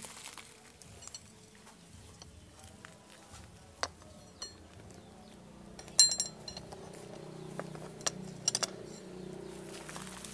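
Steel throwing knives clinking as they are set down by hand on stone: a few sharp metallic clinks spread through, the loudest about six seconds in with a brief ring.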